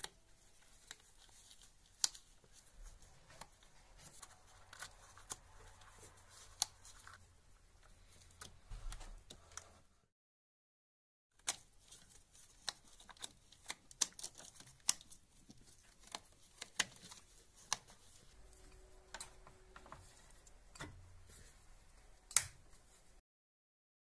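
Plastic wiring-harness plugs being handled and pushed onto the BMW N52 engine's electrical connectors, including the Valvetronic motor: faint rustling of cables with scattered sharp clicks, the loudest near the end. The sound drops out to silence twice, briefly.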